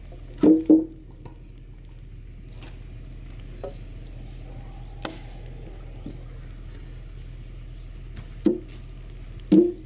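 Hollow knocks of heavy wooden timber being struck and shifted as a post-and-beam frame is fitted together: a quick double knock about half a second in, a few fainter single knocks, and a louder one near the end. A steady high buzz of insects runs underneath.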